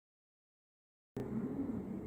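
Dead silence, then about a second in, steady room background noise with a low hum starts abruptly.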